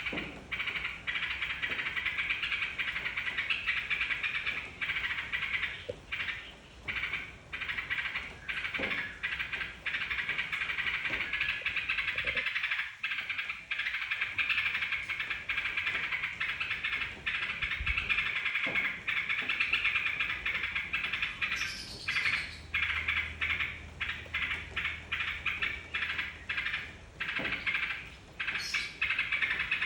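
Yellow-vented bulbul (trucukan) song, a nearly unbroken run of chattering phrases with short pauses between them, the kind of lure recording played to get caged bulbuls to sing along.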